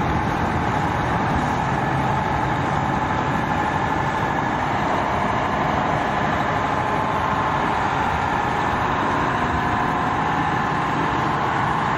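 Heavy diesel truck engines running steadily as trucks roll past.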